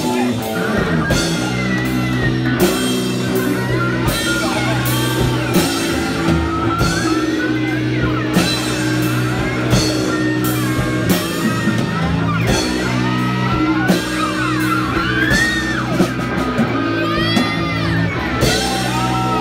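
Live punk rock band playing loud: electric guitar and bass holding steady low notes under a regular beat of drum hits, with singing gliding over it.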